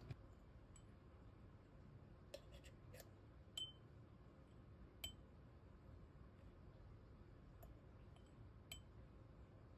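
A handful of faint, sharp glassy clinks and taps as a glass coffee jar is opened and coffee is scooped from it, over near-quiet room tone.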